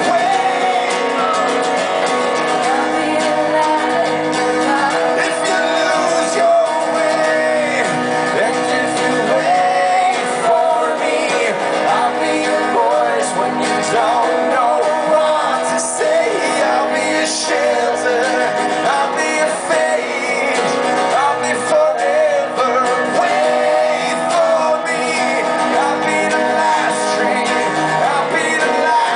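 A man singing to his own strummed acoustic guitar, played live through a microphone; the song runs on continuously.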